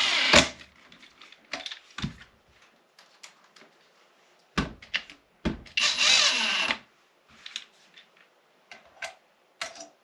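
Skil PowerCore and DeWalt cordless drill drivers run briefly at their lowest speed setting, each giving a steady motor-and-gearbox whine. One run stops just after the start, a few handling clicks follow, and another run of about a second starts about six seconds in.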